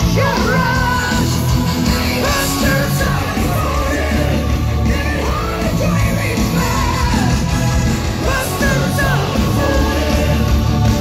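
Heavy metal band playing live through a big stage PA, a woman belting the lead vocal over loud guitars and drums, heard from far back in the crowd.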